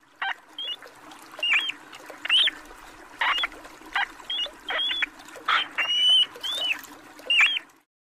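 Muskrat squeaking: a run of about a dozen short, high squeaks, several sliding up or down in pitch, over a faint steady low hum.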